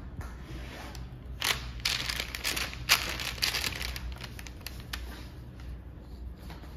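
Tissue paper crinkling and rustling in a cluster of quick bursts through the middle, with one sharp click among them.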